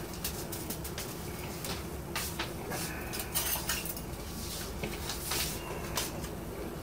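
Handling noises: an irregular run of small clicks, taps and crinkles as a small packet, likely the liquid yeast, is worked open over a plastic fermenting bucket.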